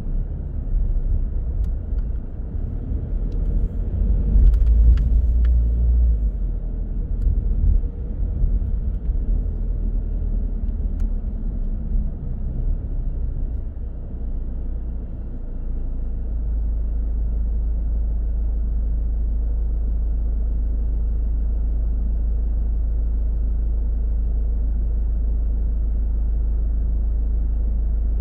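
Car on the road: low engine and tyre rumble that rises and falls over the first half, with a few light knocks, then settles into a steady, even rumble about halfway through.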